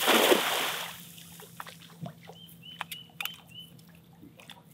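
Cast net splashing down onto the water, a loud rushing splash that fades within the first second. Small drips and knocks follow as the net's rope is hauled in, with a few short bird chirps in the middle.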